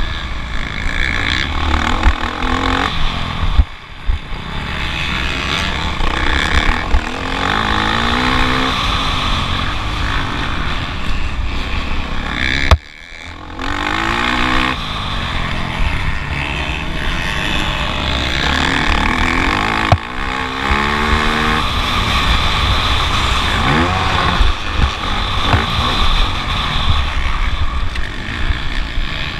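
Motocross bike engine heard onboard through a GoPro, revving up and down through the gears. The throttle drops off sharply twice, about four seconds in and again near the middle.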